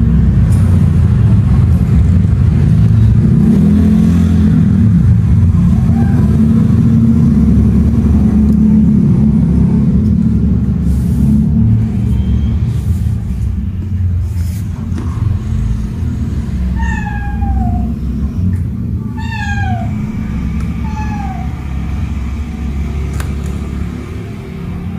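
A kitten meowing during rough play-fighting: three short meows, each falling in pitch, come close together about two-thirds of the way through, with a few fainter ones earlier. A loud, steady low rumble runs underneath throughout.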